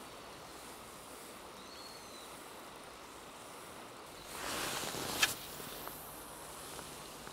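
Steady hiss of river flow. About four seconds in, a spinning-rod cast: a second-long swish as the line runs off the spinning reel, ending in a sharp click as the bail snaps shut.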